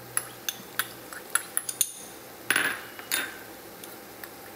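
Kitchen clatter at a cooking pot: a quick run of light clinks and taps, then two louder scraping knocks about two and a half and three seconds in, as a plastic slotted spatula and small glass spice bowls knock against a nonstick pot.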